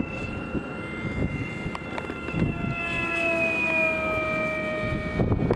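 Radio-controlled model airplane's motor and propeller whining overhead, its pitch sliding slowly lower as it flies by. Strong wind rumbles on the microphone underneath.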